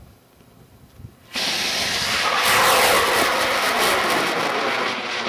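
Outlander high-power rocket's motor igniting about a second in and burning with a loud, steady hissing roar as the rocket lifts off and climbs, a faint falling tone running through it.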